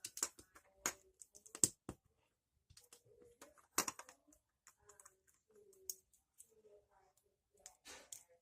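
Small plastic parts of a capsule-toy mini bulldozer kit clicking and clacking as they are handled and fitted together: irregular sharp clicks, the loudest about one and a half seconds in and again near four seconds.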